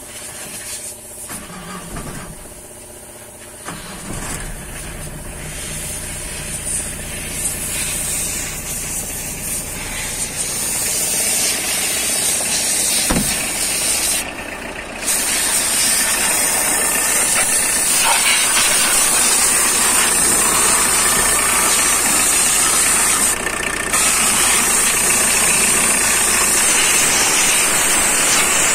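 Freshly rebuilt turbodiesel engine of a Tata Telcoline pickup running steadily. It grows louder over the first half, heard first from the cab and then at the open engine bay, with a steady high hiss over it.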